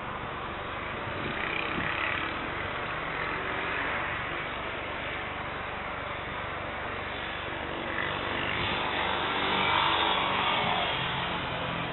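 The twin turbofan engines of an Airbus A321neo taxiing at low power: a steady distant jet rush with a low hum, swelling louder near the end as the aircraft turns toward the listener.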